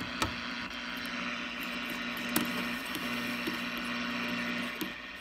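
Old Zenith shortwave receiver giving out steady static hiss with a low hum through its speaker, broken by two sharp clicks of its band selector switch, one just after the start and one about two and a half seconds in.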